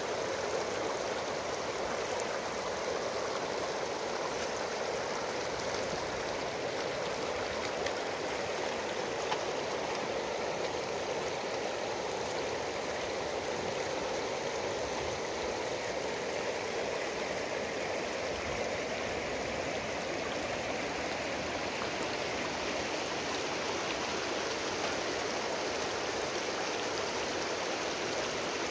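River water flowing steadily over a shallow cobble riffle.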